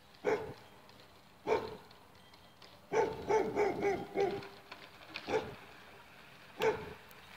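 A dog barking: two single barks, then a quick run of about six barks around three seconds in, then two more single barks.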